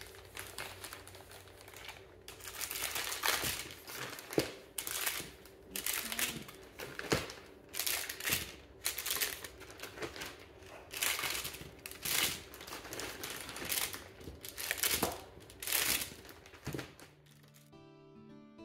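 Plastic sheeting and a plastic bag crinkling as they are handled over a tray of cookie dough balls, in irregular rustling bursts about once a second. Near the end the rustling stops and plucked-guitar background music takes over.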